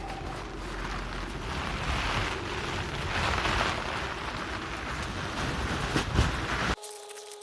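Wind blowing across the microphone: a steady rushing noise with a heavy low rumble that swells and eases, and a couple of sharp clicks near the end. It cuts off abruptly to a much quieter sound with a steady tone.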